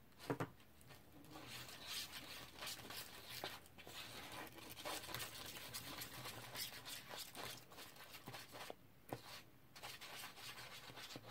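White glue slime being mixed with baking soda activator: irregular scratchy scraping and ticking of stirring in a container, with a brief pause near the end.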